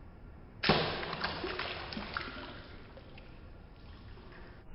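Water poured into a stainless steel plate holding plastic toy animals, starting suddenly with a splash about a second in and running on more quietly as the plate fills.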